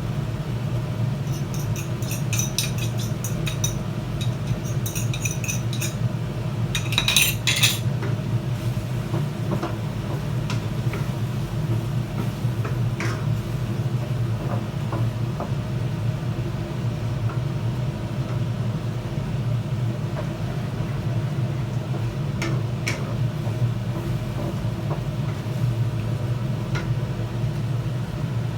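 Cooking utensil clinking and scraping against a pan while stir-frying. The clinks are busiest in the first eight seconds, with a few scattered ones later, over a steady low hum.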